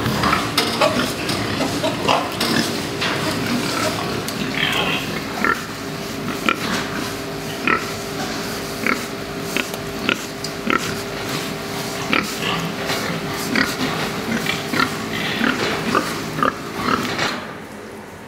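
Domestic fattening pigs in a crowded pen grunting, with short sharp calls and knocks, over a steady hum. The sound drops away near the end.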